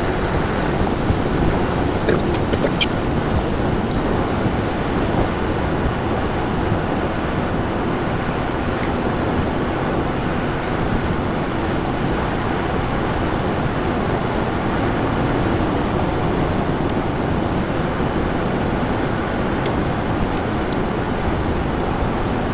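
Steady road noise from inside a moving car: tyre and engine rumble in the cabin, with a few faint ticks.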